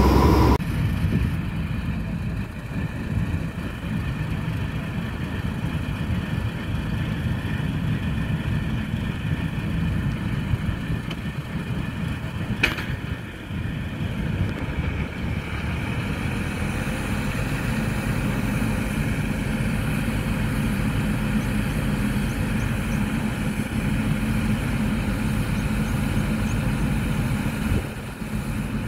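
Changfa CF866 combine harvester running steadily, its engine and working machinery making a continuous dense hum. A single sharp click sounds about halfway through.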